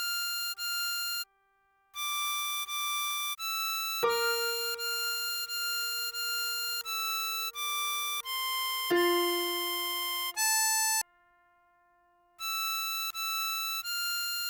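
Diatonic harmonica playing a melody note by note, a few notes a second, over a held lower note, with two short pauses: about a second in and again around eleven seconds.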